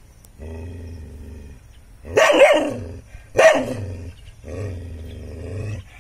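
A dog growling at a snake it is confronting: a long low growl, two sharp barks about a second apart in the middle, then another long growl.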